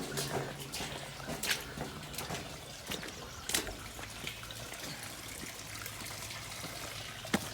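Water trickling through a culvert, with scattered sharp knocks and clicks, the loudest near the end.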